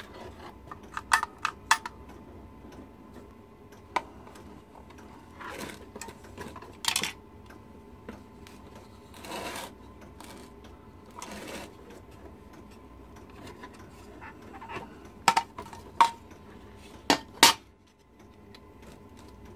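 Hard clinks and clicks with a few short scrapes as a sewing-machine motor's foot pedal and its small parts are handled on a bench, the sharp clicks coming in clusters about a second in and again near the end.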